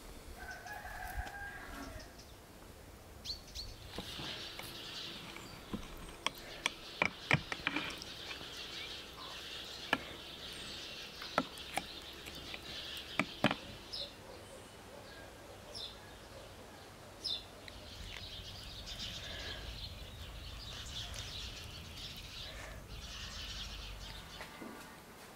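A rooster crows once, briefly, about a second in. After it come scattered sharp clicks and knocks, thickest in the middle, over a faint high hiss that comes and goes.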